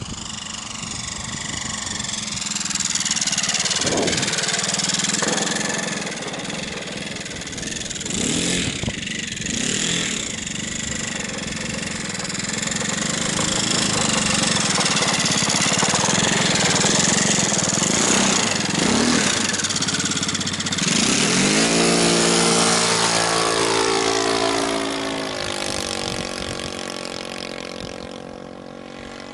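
Hangar 9 Van's RV-4 radio-controlled model plane's engine and propeller running throughout, rising and falling in pitch as the plane throttles and passes close by. The drone is loudest in the middle and falls steadily in pitch over a few seconds about three-quarters of the way through, then fades near the end.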